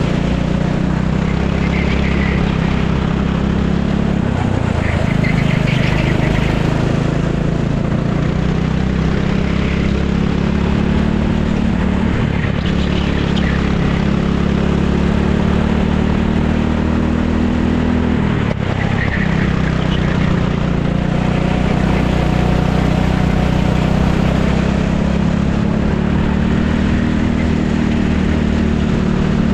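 Racing kart engine heard from the driver's seat, running hard through a lap. Its pitch drops sharply three times, about four, twelve and eighteen seconds in, and climbs again each time as the kart accelerates out of the corners.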